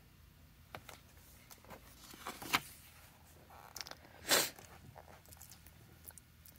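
A book page being turned and pressed flat by hand: short paper rustles and swishes, loudest about two and a half seconds in and again just past four seconds.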